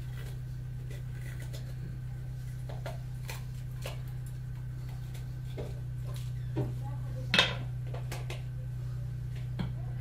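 Scattered small clicks and knocks of a knife, utensils and vegetables being handled on a wooden cutting board set over a pot, with one sharper knock about seven seconds in, over a steady low hum.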